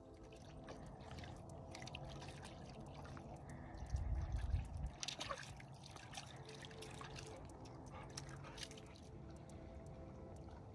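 Small waves lapping and trickling at the lake's edge, with scattered little splashes, and a brief low rumble about four seconds in.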